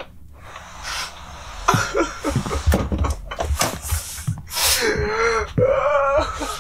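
A man crying hard: gasping, snorting sobs, then from about halfway long, wavering wails.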